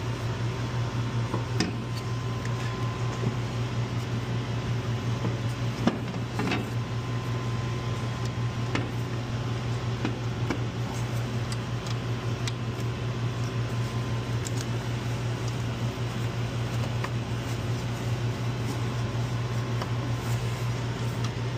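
Steady low mechanical hum, like shop ventilation or a fan, with scattered light clicks and knocks as a metal intercooler unit is handled and worked into place in the engine bay.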